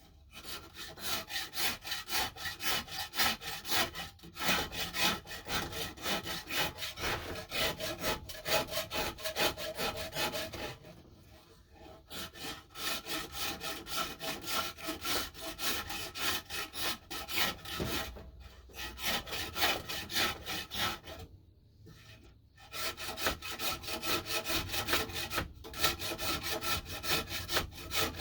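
Rasp worked back and forth on a wooden axe-handle knob, shaping it by hand: fast, even scraping strokes in long runs, broken by three short pauses.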